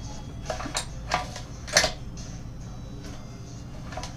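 A few sharp clicks and knocks, the loudest a little under two seconds in, as the Predator 212cc engine is turned over by hand at the recoil starter to bring the piston to top dead center. A low steady hum runs underneath.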